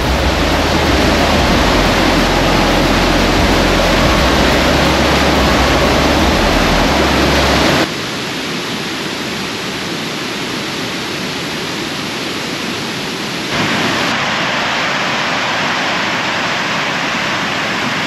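Mae Ya Waterfall's water rushing over rock cascades, a steady loud rush of noise. About eight seconds in the sound changes abruptly, becoming quieter and losing its low rumble, then grows a little louder again a few seconds later.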